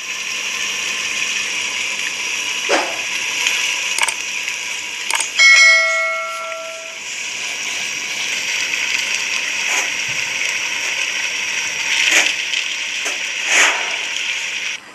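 Boneless meat frying in hot oil with onions and tomatoes in a clay handi: a steady sizzle with scattered sharp knocks, and one clear metallic ring about five seconds in that lasts over a second.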